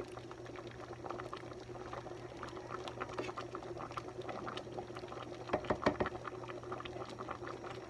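Thick mung bean and coconut milk stew bubbling at a boil in an aluminium pot while a wooden spoon stirs it, a steady crackle of small pops. A few louder clicks come a little before six seconds in, over a steady low hum.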